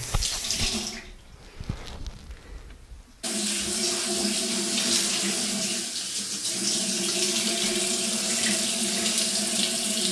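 Bathroom tap turned on about three seconds in, then water running steadily with a steady hum beneath the rush.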